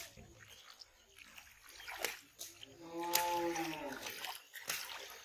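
Muddy water splashing and sloshing in short bursts as hands and a net work in it. About three seconds in, a single drawn-out call of about a second rises over it, the loudest sound here.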